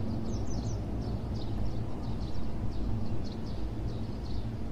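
Small birds chirping in short repeated calls over a steady low hum.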